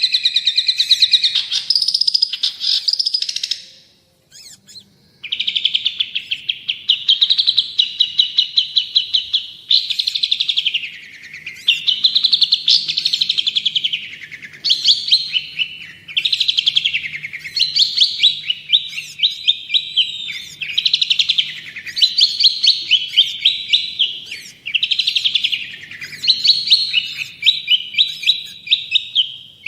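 Long-tailed shrike (cendet) in full song: fast rattling trills, one phrase after another, sweeping up and down in pitch. There is a short break about four seconds in.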